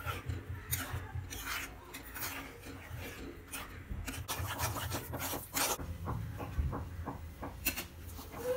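Steel spoon scraping against the pan while stirring a thick, thickening rice mixture, in many short irregular strokes over a low steady rumble.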